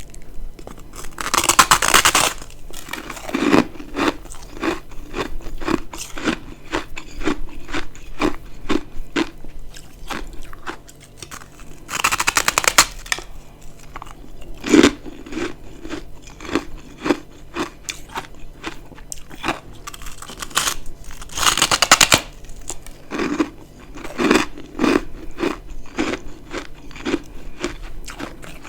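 A person bites into dry, crispy humidifier-freezer frost ice chunks and chews them. There are three loud crunching bites, each about a second long, and each is followed by steady chewing at about two chews a second.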